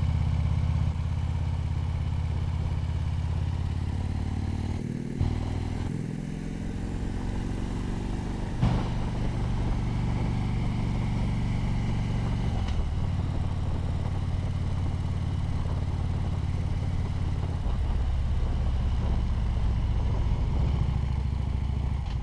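Harley-Davidson Ultra Limited's V-twin engine running while riding. The engine note dips about five seconds in and climbs back up a second or two later. Two short clacks come near nine and thirteen seconds in.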